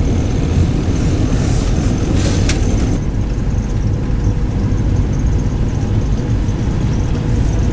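Off-road vehicle driving, heard from inside the cabin: a steady, loud engine and road rumble, with a brief knock about two and a half seconds in.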